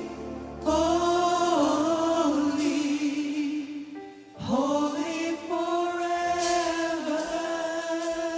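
Church worship band and singers performing a slow worship song, voices holding long notes over the band. The music drops away briefly about four seconds in, then the singing comes back in.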